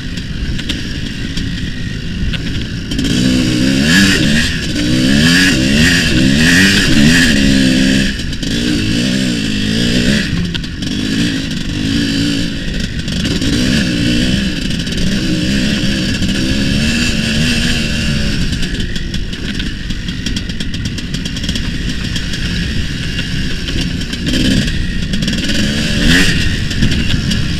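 Tuned single-cylinder two-stroke engine of a homemade IZh Planeta-based cross-enduro motorcycle being ridden hard, revving up and dropping back over and over as the rider accelerates and shifts. It is loudest about four to eight seconds in.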